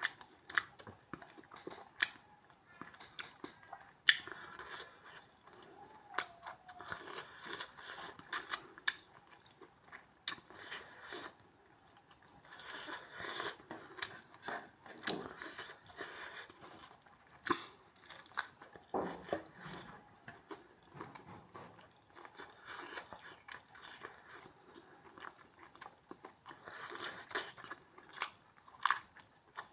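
Close-up mukbang eating sounds: a person chewing and biting pork, with irregular crunches and sharp clicks.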